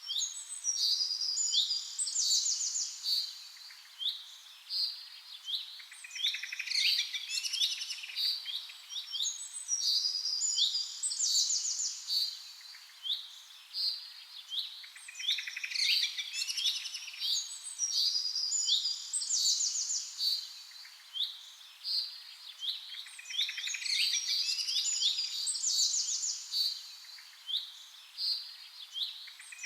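Songbirds singing in woodland: a dense chorus of overlapping high chirps, whistles and fast trills that swells and dips every few seconds.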